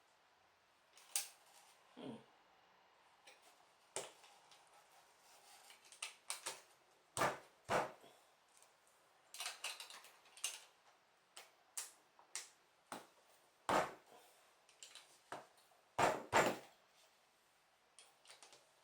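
Small plastic LEGO pieces being handled and pressed together: irregular clicks and light clatter, with a few sharper snaps.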